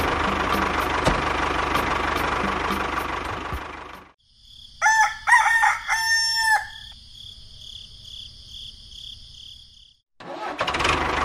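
A steady motor noise with a low hum, from the toy mini tractor, runs for about four seconds and cuts off. After a short gap a rooster crows twice, a short crow and then a longer held one, over a steady high chirring. The motor noise starts again near the end.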